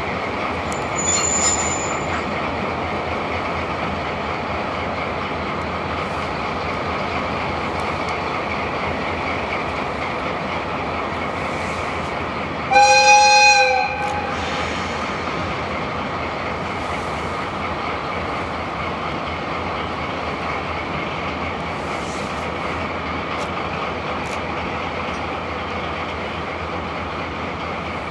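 A train hauled by a diesel locomotive rolls steadily with a faint wheel squeal. Its horn gives one loud blast about halfway through, lasting just over a second.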